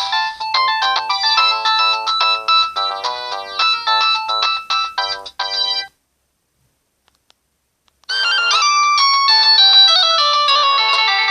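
Samsung GT-E1205T ringtones played on a Samsung GT-E2250 mobile phone. A melody of quick, short electronic notes stops about six seconds in. After two seconds of silence a different ringtone starts, with denser notes and fuller chords.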